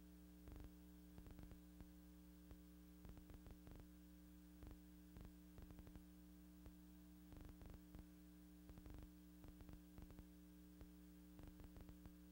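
Near silence: a faint steady electrical hum with scattered clicks and crackle, the noise floor of an archival film transfer; no machine sound is heard.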